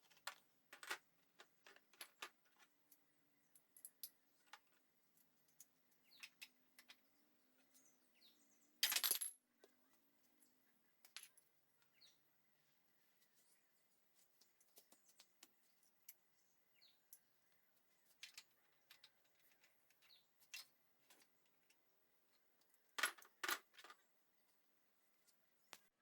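Scattered light clicks and metallic clinks of small parts and hand tools being handled on a workbench, with a louder brief rattle about nine seconds in and two sharp knocks near the end.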